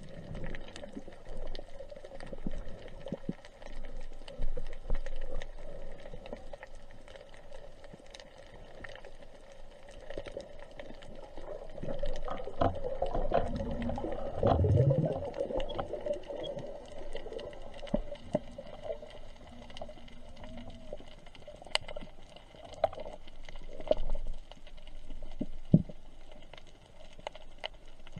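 Underwater sound of a diver's camera over a rocky reef: scattered clicks and crackles over a faint steady hum, with low rumbling and gurgling that grows louder in the middle.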